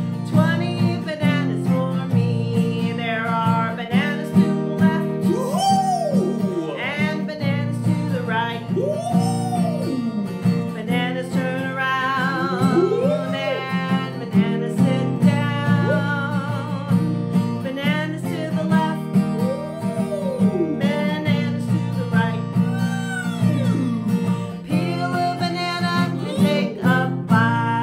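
Acoustic guitar strummed steadily while a woman sings a children's song, with sliding, swooping notes in the voice.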